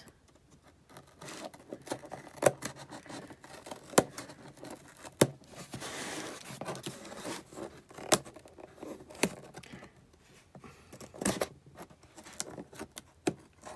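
A cardboard shipping box being handled and picked at: scattered sharp taps and clicks on the cardboard, with a few seconds of scraping or tearing about six seconds in.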